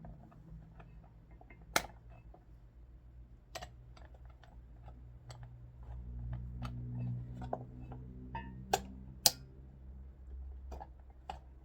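Irregular small clicks and taps of hand tools and plastic and metal parts as a Milwaukee chop saw's handle assembly is taken apart, a few sharper knocks among them. A low hum swells in the middle stretch.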